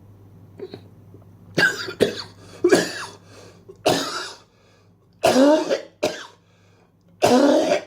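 A man coughing hard and repeatedly, about seven loud coughs in uneven bouts, some ending in a hoarse voiced rasp.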